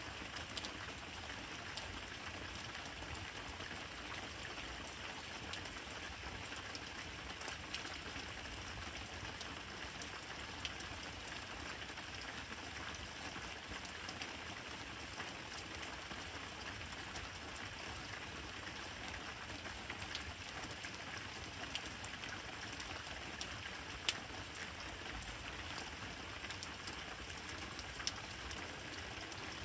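Steady rain falling, with a few louder single drops striking close by, the sharpest about two-thirds of the way through.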